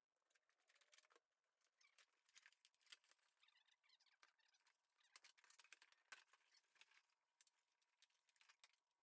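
Near silence, with faint scattered crinkling, scraping and clicks of cardboard and plastic packaging being handled.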